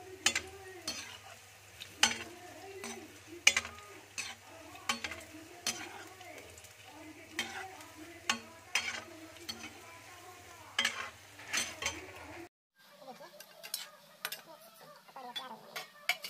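Grated bottle-gourd and gram-flour kofta balls sizzling as they deep-fry in oil in an iron kadai. A metal slotted spoon turning them clinks and scrapes against the pan about once a second. There is a brief gap about three-quarters of the way through.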